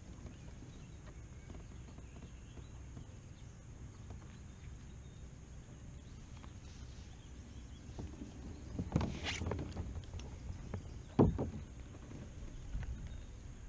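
Quiet, steady wind and water noise around a plastic pedal kayak, with a few scuffs and rustles as the angler handles a bass. Near the end there is a single sharp thump against the kayak, the loudest sound, as he leans over the side.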